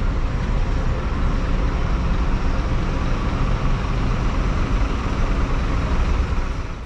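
Street traffic at night: a steady rumble of car and bus engines and tyres on the road, fading out at the very end.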